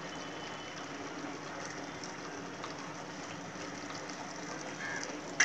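Sakroli batter frying in hot oil in a kadhai: a steady, even sizzle. A brief sharp knock near the end.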